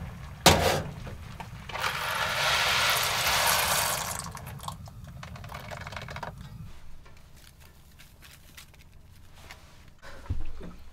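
Hot water poured from a steaming kettle into a saucepan on a gas stove burner, a rushing splash lasting a couple of seconds after a sharp knock. Softer pouring follows as dry macaroni is tipped into the pot, over a low steady hum that stops about two-thirds of the way through.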